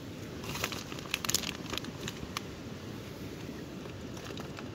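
Tin foil crinkling and rustling under a hand as grated mozzarella is scattered onto sandwiches, with a cluster of small crackles in the first two seconds and a few more near the end, over a steady background hiss.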